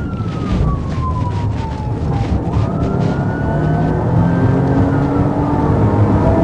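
Police siren wailing, its pitch sliding slowly down, then back up about two and a half seconds in and holding high, over the steady hum of a pursuing police cruiser's engine and road noise, which grow louder toward the end as the car speeds up.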